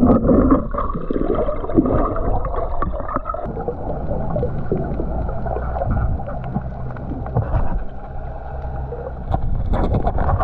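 Muffled underwater sound picked up by a GoPro in its housing: water sloshing and gurgling around the camera, with scattered small clicks and a faint low steady hum in the middle.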